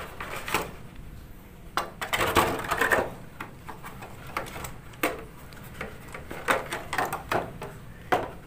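Clear plastic blister packaging being pried apart and handled: a run of crinkling crackles and clicks, with a louder rustle about two seconds in.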